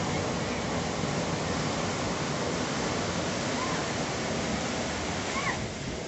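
Ocean surf breaking and foaming up the shore in a steady rush of water, easing off slightly near the end.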